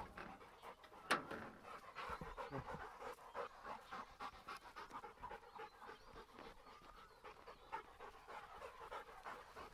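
A Rottweiler panting in a quick, even run of breaths, with one sharp click about a second in.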